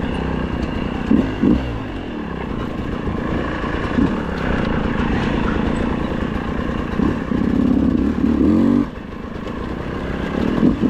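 Trail motorcycle engine running while riding, blipped up and down on the throttle several times, then held at higher revs for about a second before dropping back off the throttle near the end.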